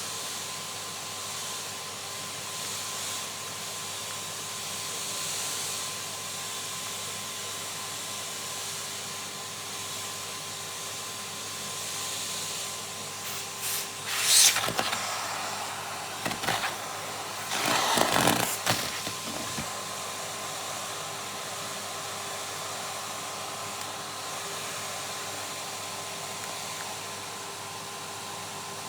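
Vacuum cleaner running steadily, with two loud bursts of noise about halfway through as pieces of torn nitrile glove are sucked into the hose.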